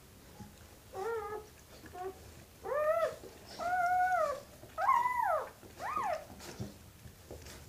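High, whimpering cries from a dog during whelping: about six short calls, each rising then falling in pitch, the later ones longer and louder.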